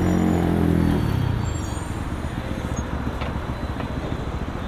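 A motor vehicle passes close by. Its engine note is loudest in the first second, drops in pitch as it goes past, and fades into steady road traffic noise.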